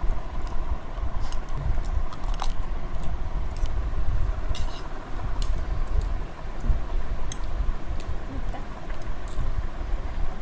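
Scattered light clinks and clicks of cutlery and plates as a family eats a meal, over a steady low rumble.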